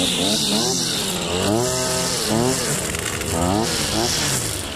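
Gas string trimmer engine running and being throttled up and down over and over as it cuts, its pitch rising and falling about once a second.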